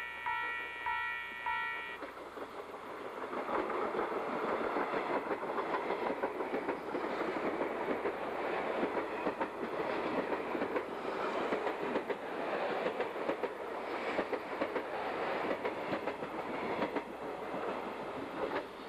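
A bell ringing in steady strokes, about two a second, stops about two seconds in. A 381 series limited express electric train then runs past along the platform, its wheels clattering over the rail joints in a dense rumble that fades near the end as the last cars go by.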